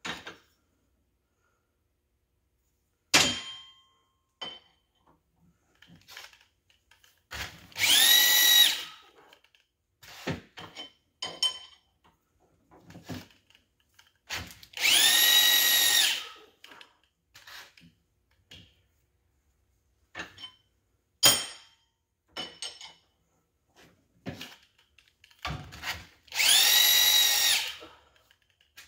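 Small corded angle grinder switched on for three short runs, the last the longest. Each run is a high whine that spins up and winds down, as the edges of connecting rods are chamfered. A few sharp clanks of metal parts and tools come between the runs.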